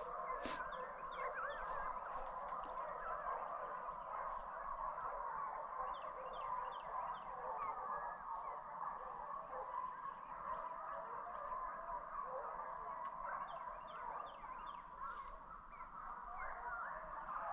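Pack of deer hounds baying while running a deer, many voices overlapping in a continuous, wavering chorus.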